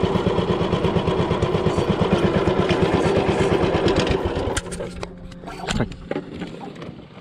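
Small boat engine running with a rapid, even pulse, then throttled back to a quieter low idle about four and a half seconds in.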